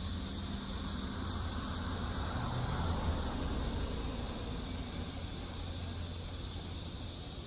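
Steady outdoor background noise: a low rumble with a high hiss above it, unchanging throughout.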